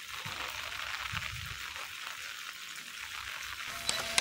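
Steady hiss of heavy rain falling on wet pavement. Near the end there are a couple of sharp clicks from a camera shutter.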